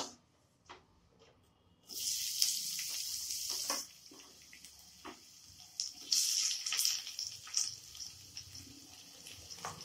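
Sliced onion, then chopped capsicum, sizzling as they are dropped into hot oil in a non-stick kadai. The hiss starts suddenly about two seconds in, eases off, and rises again around six seconds when the capsicum goes in.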